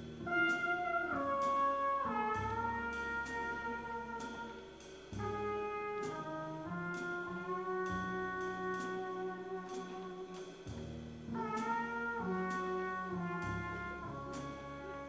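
Background music: long held melody notes that slide between pitches, over low bass notes.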